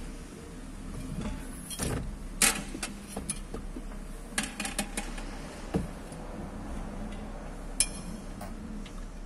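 Scattered clicks and knocks of a manual wheelchair being reassembled, as a rear wheel is fitted back onto the frame, over a low steady hum.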